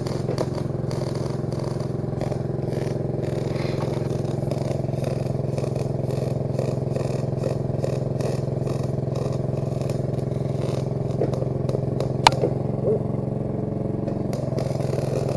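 Engine-drive welder's engine running steadily, under the irregular crackle of a MIG welding arc run a little cold. One sharp click about twelve seconds in.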